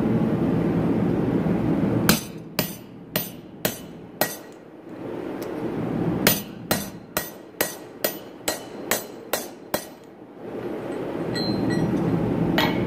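A blacksmith's hammer striking metal on an anvil while forging a jingle bell: a run of five blows about half a second apart, a short pause, then nine more at the same pace. A few light clinks and one last blow come near the end. A steady rushing roar fills the gaps before and after the hammering.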